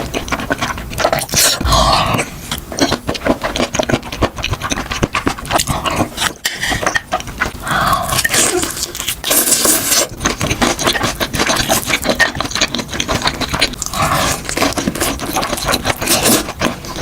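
Close-miked eating sounds: wet chewing and lip-smacking, with a dense run of short clicks and breathy mouth noises.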